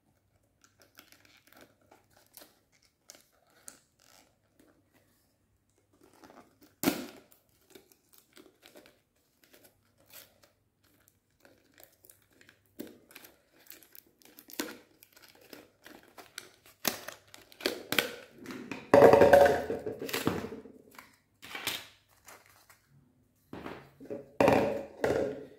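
Headphone packaging being handled and opened: scattered small clicks and taps, a sharp knock about seven seconds in, and a loud crinkling, tearing rustle about nineteen seconds in, with more rustling bursts near the end.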